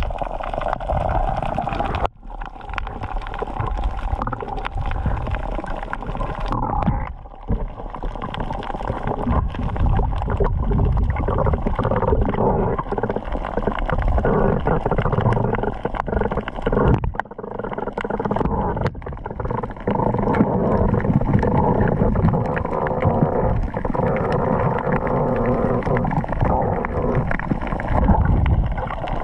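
Muffled underwater sound picked up by a camera below the surface: gurgling, churning water with a steady hum underneath, dropping out briefly about two seconds in and again about seven seconds in.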